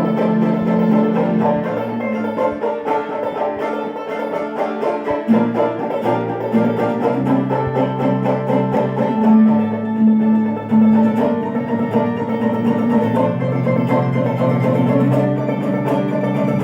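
Live acoustic string band playing an instrumental tune, with banjo picking prominent over shifting low notes.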